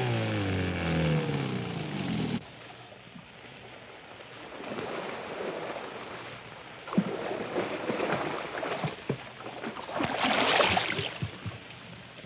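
A boat motor slows down with its pitch falling, then cuts off abruptly about two seconds in. After that comes water lapping and splashing with scattered wooden knocks as a canoe is poled through flooded timber, and a louder splash just before the end.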